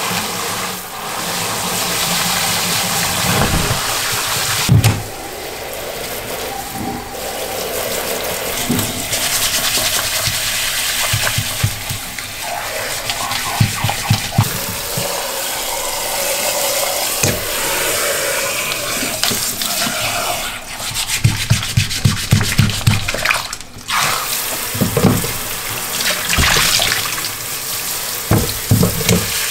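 Water spraying from a handheld shower head over leather boots while a scrubbing brush scrubs them, with repeated short brushing strokes. The boots are being rinsed of slippery residue after an oxygen-bleach soak.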